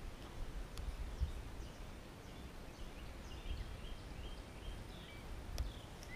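Outdoor lakeside ambience: a low, gusty rumble of wind on the microphone, with faint bird chirps, a quick run of about half a dozen short calls in the middle.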